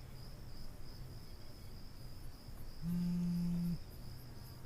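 Crickets chirping steadily in the background. About three seconds in, a mobile phone on vibrate gives a low buzz lasting just under a second.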